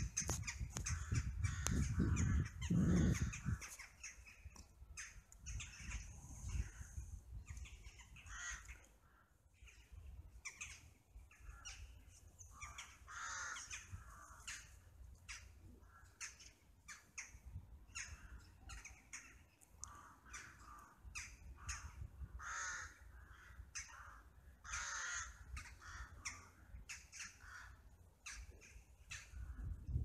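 A flock of corvids calling, many short caws overlapping and repeating throughout. A low rumble sits under the calls for the first few seconds.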